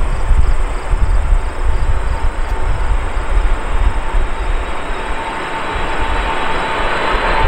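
Airbus CC-150 Polaris (A310) on landing approach, its twin turbofan engines making a steady jet rush over a low rumble, with a fan whine that grows louder toward the end as the aircraft nears.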